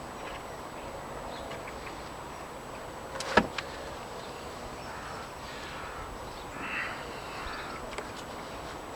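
A single sharp wooden knock about a third of the way in, with a smaller knock just after, as a wooden pallet is knocked into place; then a brief rustle and a faint click.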